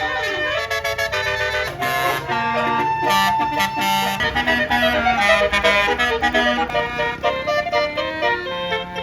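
Bus basuri horn, a multi-tone musical air horn, playing a melody of reedy held notes that change in steps. A low rumble runs under it from about four seconds in.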